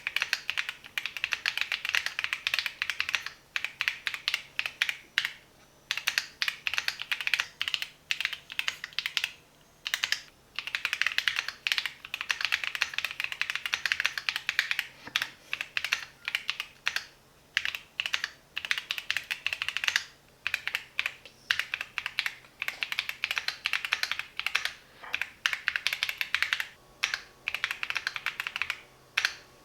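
Typing on a Keychron Q6 Max full-size aluminium mechanical keyboard with Gateron Jupiter Banana switches: fast runs of crisp keystrokes broken by short pauses of about half a second.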